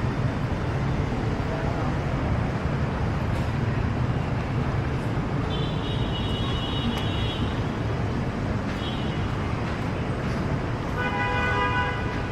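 Busy street traffic of motorbikes and cars, a steady rumble, with a vehicle horn honking about halfway through, a short honk a few seconds later, and a longer, deeper horn near the end.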